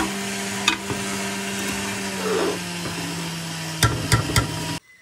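A steel ladle clinks against an aluminium cooking pot of jaggery syrup, once about a second in and three times in quick succession near the end. Under it runs a steady motor hum with hiss. Everything cuts off abruptly just before the end.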